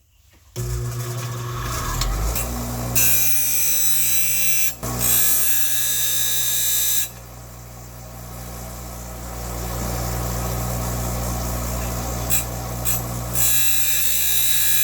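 Electric grinder starting up and running steadily while the flat tip of a steel screwdriver is ground down against the wheel. The metal-on-wheel grinding comes in bright, loud stretches, about three to seven seconds in and again near the end, with the motor running lighter in between.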